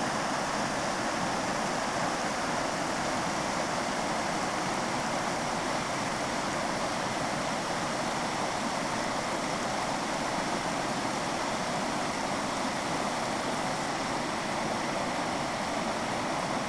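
Floodwater spilling over a low stake-and-bamboo check weir in a stream and rushing white over the rocks below it: a steady, unbroken rush of water.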